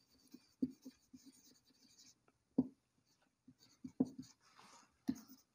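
Marker pen writing on a whiteboard: faint scratchy strokes broken by short, light taps of the tip against the board.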